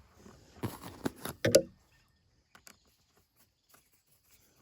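A few small clicks and rattles of a nut and bolt being fitted by hand on the compost tumbler's panels, with a brief louder knock about a second and a half in, then only a few faint ticks.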